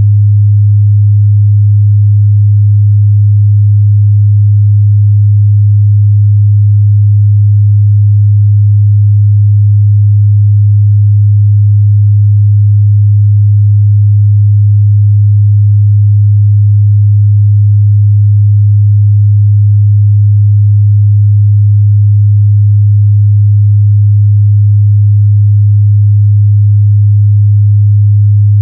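A steady, loud 103 Hz sine-wave test tone: a single unchanging low hum.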